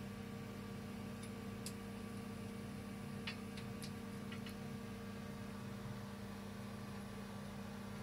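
A few light, sharp clicks and taps from a kitten's claws and paws on painted metal stair-railing bars as it climbs, most of them bunched about three to four seconds in, over a steady low hum.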